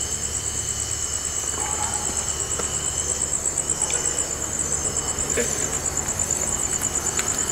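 Crickets chirping in a steady, high-pitched, rapidly pulsing trill, with a second, lower insect tone that fades out about halfway through. A steady low rumble sits underneath, with a few faint ticks.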